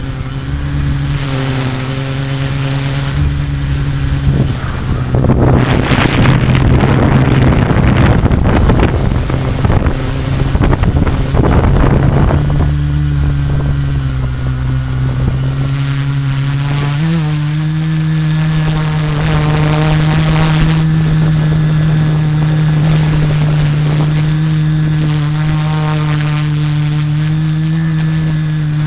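Brushless motors (LD Power MT 4010-475KV) and 13 x 5.5-inch carbon propellers of a GF 680 multirotor drone humming steadily, heard from the camera on board. Wind gusts over the microphone through the first dozen seconds, and the hum steps slightly higher in pitch a bit past halfway.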